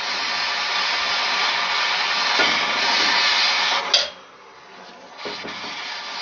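Brazing torch flame hissing steadily as it heats a copper pipe joint. About four seconds in there is a sharp click, the hiss falls much quieter for about a second, then comes back.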